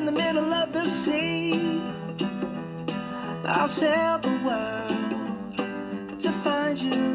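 Background music: a song with a sung melody over strummed guitar.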